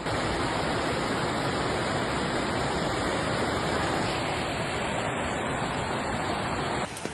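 Fast-flowing floodwater rushing, a steady wash of noise that cuts off suddenly near the end.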